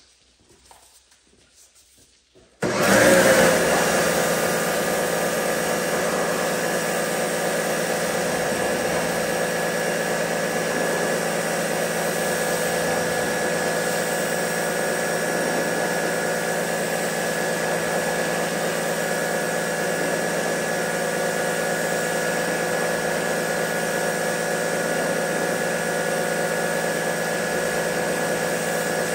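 An electric pressure washer starts about three seconds in and runs steadily: a motor-and-pump whine under the hiss of the water jet spraying against a truck's side panels as the wash foam is rinsed off. It cuts out right at the end.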